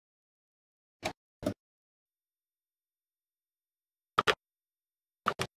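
Short wooden knocks in pairs as wooden strips are lifted and set down in a plywood drawer: two about a second in, two louder ones about four seconds in, and two more near the end, with dead silence between.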